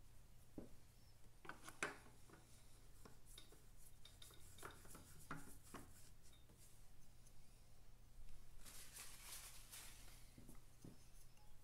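Faint clicks and light metal handling knocks as a K&N spin-on oil filter canister is offered up by hand to the aluminium filter housing, then a brief scraping rub late on as it is screwed on.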